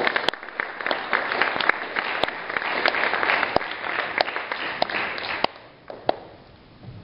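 Audience applause: many people clapping, which dies away about five and a half seconds in, followed by a couple of stray claps.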